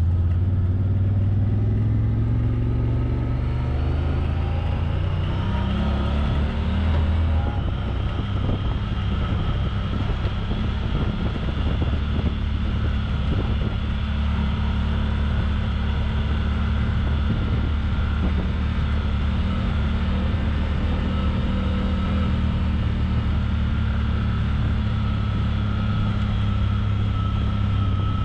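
Off-road vehicle's engine running under way across sand. Its pitch climbs over the first several seconds as it accelerates, then holds at a steady cruise with a thin high whine over the engine.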